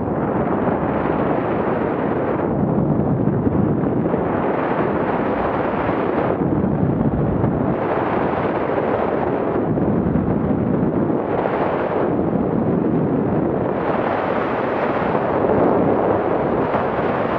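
Loud wind rush buffeting an action camera's microphone during a fast ski descent, mixed with skis hissing over the snow. The noise swells and eases every two seconds or so.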